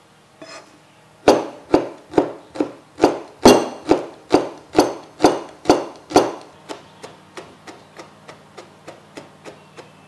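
Chef's knife chopping garlic cloves on a plastic cutting board: about a dozen loud, even chops roughly two a second, then lighter, quicker taps over the last few seconds as the garlic is minced fine.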